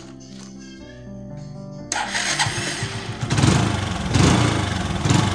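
Background music, then about two seconds in a motorcycle engine starts and is revved in three surges.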